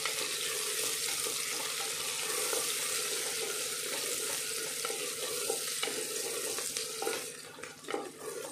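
Sliced onions and ginger sizzling in hot oil in an aluminium pressure cooker, stirred with a wooden spatula. The steady sizzle eases about seven seconds in, leaving a few scraping strokes of the spatula against the pot.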